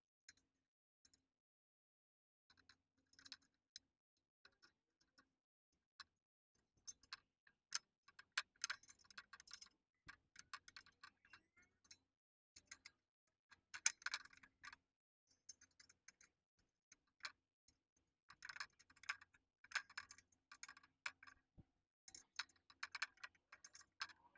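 Faint, irregular metallic clicks and taps of small hand tools on bolts and nuts, in short clusters, as rack-bracket bolts are tightened with a small socket and a 4 mm hex key.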